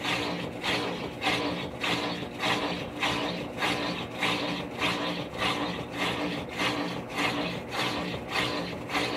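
Maytag Centennial top-load washing machine agitating on the delicate cycle: its motor hums steadily under rhythmic swishing strokes, about two a second, as the wash action turns back and forth.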